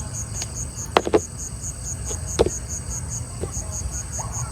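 Insects chirping in a steady, fast pulse of about four beats a second over a low steady hum, with a few sharp knocks: two close together about a second in and one more near two and a half seconds.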